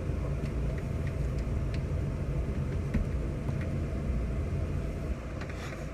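A steady low rumble with a few faint clicks, dropping slightly in level about five seconds in.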